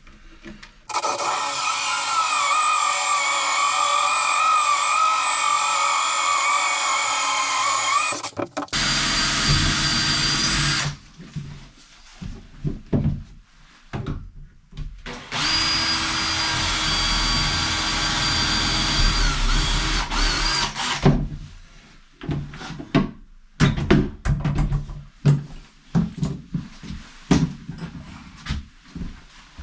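A power drill runs steadily for about seven seconds, pauses, and runs again for about six seconds, followed by scattered knocks and tool clatter.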